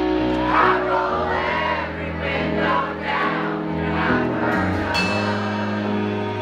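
Live country band playing a slow song: held chords over a bass line that changes a few times, with several voices singing.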